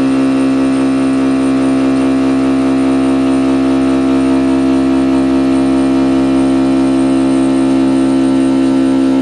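Carbide end mill on a Precision Matthews PM-25 CNC mill roughing 4340 steel: a loud, steady pitched whine from the cut that holds one note throughout.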